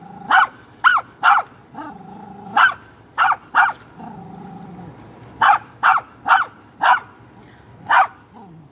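A small curly-coated dog barking sharply in quick clusters of three or four, about eleven barks in all, with low growling between them. The last bark comes alone near the end.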